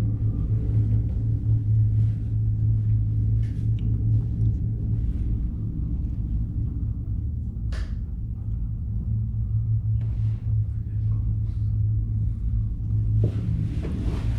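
Steady low rumble inside a PEAK 2 PEAK tricable gondola cabin as it rides along its cables, with a single sharp click about eight seconds in and a run of clicks and rattles near the end.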